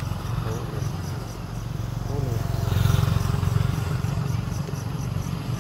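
Low rumbling outdoor background that swells about three seconds in, with faint voices.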